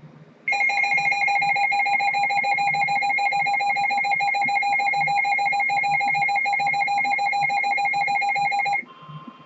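Emergency Alert System attention signal: a steady, loud alarm tone with a fast flutter, starting about half a second in and cutting off sharply after about eight seconds, as it does before the spoken alert message.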